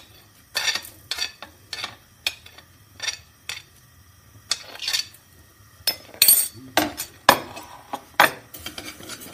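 A metal spoon clinking and scraping against a steel kadhai in short, irregular strokes, stirring mustard, fennel and fenugreek seeds as they dry-roast. The strokes come thicker and louder about six seconds in.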